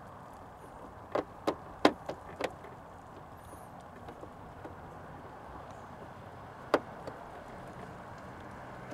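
Sharp clicks and knocks as a headlight dust cover is pressed and twisted onto the back of a 2019 Ford Ranger headlight housing: a quick run of about five a second or so in, then a single sharp click near the end.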